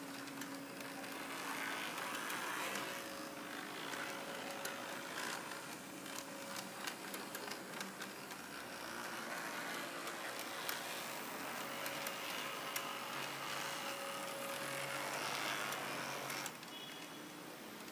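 H0-scale model Peter Witt trams running on the layout: a small electric motor whirring, with the wheels clicking over rail joints and points. The whir swells and fades as the cars pass close by, with a drop near the end.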